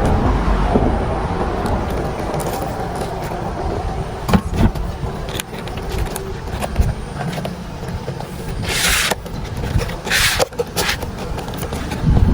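Steady low rumble of road traffic, with a few sharp clicks near the middle and some short hisses in the second half.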